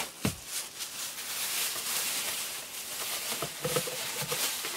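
Thin plastic bag crinkling and rustling as it is handled, with a few light knocks about three and a half seconds in.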